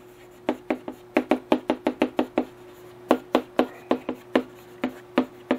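Writing strokes tapping on a hard writing surface: a run of quick, irregular sharp taps, with a short pause in the middle.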